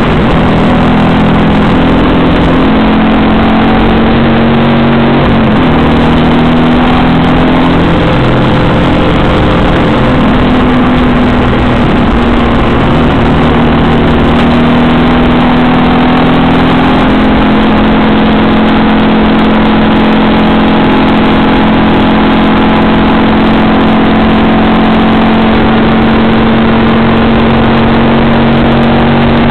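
Alfa Romeo Arna's flat-four boxer engine running hard under load, heard from inside the cabin and very loud. Its pitch steps up and down through the first half, then holds high and slowly climbs for the last dozen seconds.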